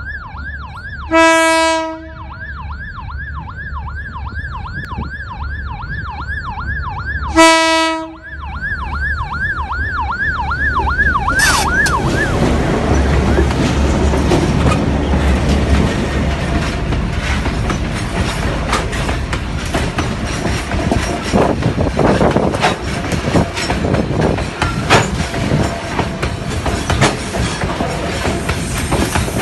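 Pair of EMD G12M diesel-electric locomotives approaching with a coal train, sounding two short air-horn blasts about six seconds apart. Under the horn, a level-crossing warning siren wails rapidly up and down. The locomotives then rumble loudly past, followed by the steady rumble and clatter of the coal wagons' wheels over the rails.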